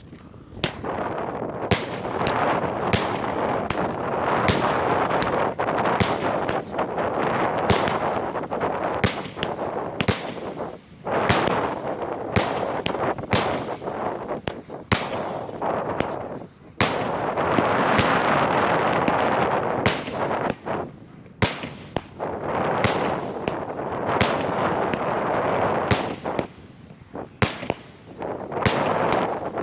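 Consumer firework salute cake firing: a long string of sharp bangs, several close together, over a continuous crackle and hiss, with a few short lulls between volleys.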